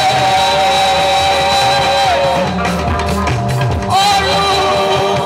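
Live gospel praise music: a lead singer holds long sung notes over a band with drum kit and guitar, then starts a new phrase about four seconds in.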